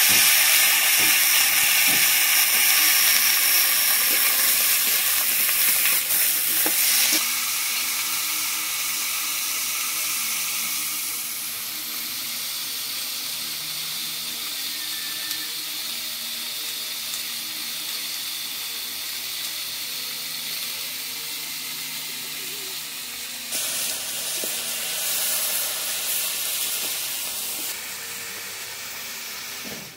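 Chopped kohlrabi and potato sizzling in hot oil in a wok. The sizzle is loudest at first, eases off after several seconds, and swells again briefly near the end.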